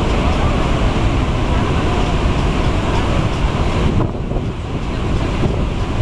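Barachukki Falls on the Cauvery in full flood: a loud, steady rush of falling water, easing slightly for a moment about four seconds in.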